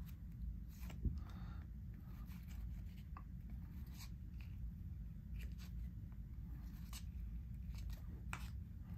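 1993 Skybox trading cards being slid apart and flipped one by one by hand: short dry paper scrapes and flicks at irregular intervals, about one a second, over a steady low room hum.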